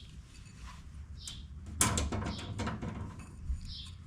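Small handling noises of the old rubber O-ring being pried off the plastic oil filter housing cap: light scraping and a few brief high squeaks, with a sharp click a little under two seconds in.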